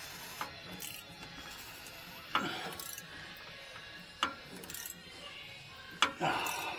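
Three sharp metallic clinks of hand tools, a socket and breaker bar knocking against the metal fuel filter housing, a couple of seconds apart, over a radio playing music.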